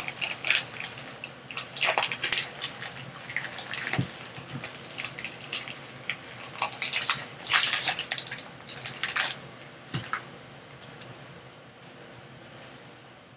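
Foil wrapper of a 2020 Bowman Draft Super Jumbo trading-card pack crinkling and tearing open, a dense crackling. Near the end it thins to a few light clicks as the stack of cards is handled.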